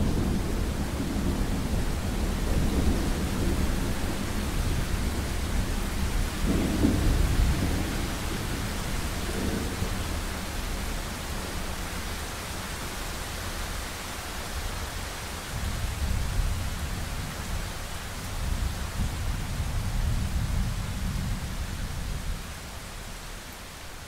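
Thunder rumbling over steady rain: a long roll, loudest at the start and again about seven seconds in, dies away, then a second, softer roll comes in about sixteen seconds in and fades near the end, with the rain hissing throughout.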